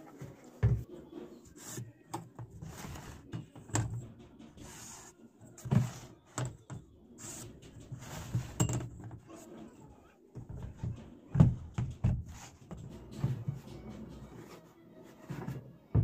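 Empty plastic jerrycan being handled on a tabletop: irregular hollow thumps and knocks as it is turned and set down, with rubbing and scraping as a flexible ruler is laid across it.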